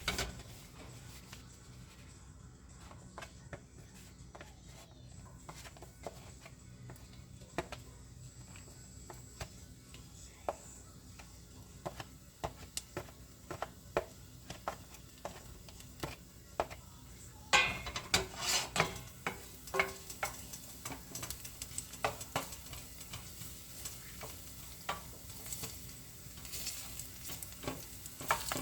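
Stir-frying in a pan: a utensil stirring and clicking against the pan over a faint sizzle. About two-thirds of the way in, the clatter gets louder and busier and the sizzle stronger.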